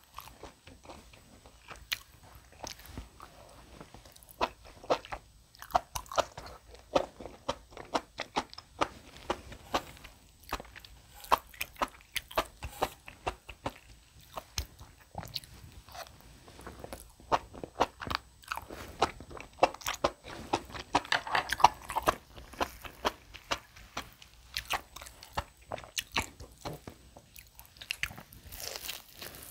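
Close-miked eating sounds: a person biting and chewing food, with many short, irregular clicks and crunches coming in flurries with brief lulls.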